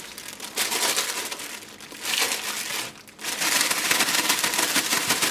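Crinkly rustling and crackling of something being handled while bell peppers are readied for cutting, in two stretches with a brief pause about three seconds in.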